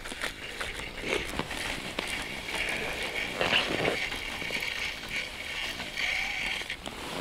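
Small ice-fishing reel being cranked, a light whirring in spells with small clicks, as a hooked fish is reeled up through the ice hole; rustle of winter clothing and gloves.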